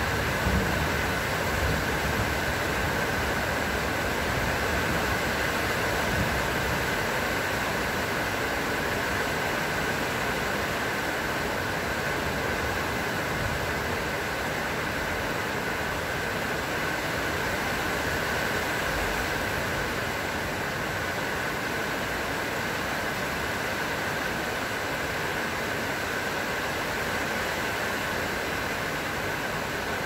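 Steady, even rain falling.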